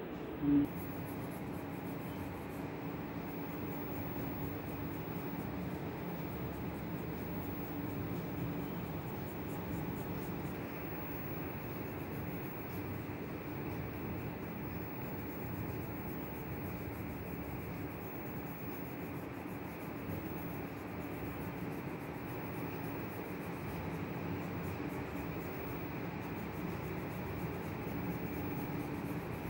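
Graphite pencil scratching and rubbing steadily on sketchbook paper while shading a portrait, with a faint steady low hum underneath.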